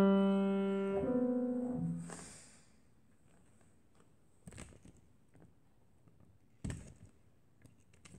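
Grand piano finishing a descending scale: the last low notes are struck about one and two seconds in and ring out, dying away within a couple of seconds. Then a few faint knocks.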